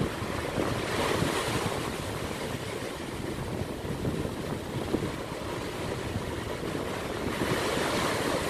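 Small waves breaking and washing up on a sandy beach, with wind buffeting the microphone. The surf swells about a second in and again near the end.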